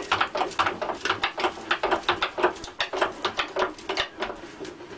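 Hand-pumped hydraulic shop press being worked to squeeze a toroidal transformer core: a fast run of clicks, about five or six a second, from the pump handle's strokes. The clicks fade out near the end as the pumping stops.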